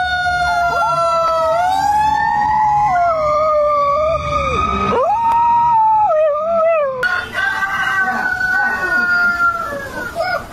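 A fire engine's siren wails with a slowly falling tone while a dog howls along with it, its howl rising and falling over the siren.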